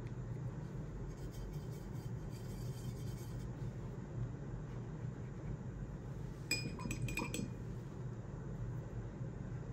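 A paintbrush clinks several times against a glass water cup, in a quick cluster about two-thirds of the way in with a short ring after each, as it is rinsed. Before that there is a faint scratch of the brush working in a watercolor pan, over a steady low hum.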